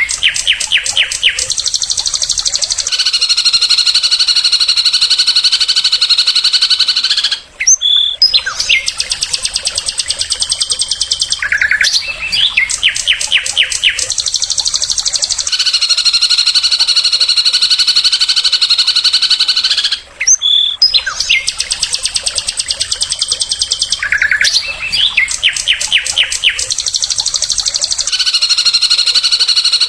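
Recorded songbird song: rapid-fire chattering notes alternate with long, dense, buzzy trills of about four seconds each. The same sequence repeats about every twelve seconds, each time after a brief break with a sharp rising note.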